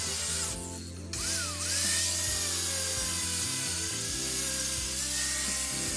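Handheld power tool running with a high whine and hiss, stopping briefly about half a second in and then spinning back up, over background music.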